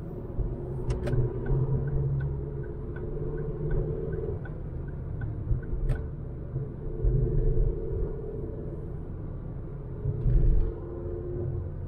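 2006 Ford Focus's 100 bhp four-cylinder petrol engine running with road rumble while driving. A light regular ticking, about three a second, runs for a few seconds early in the drive, and there is a louder low thump about ten seconds in.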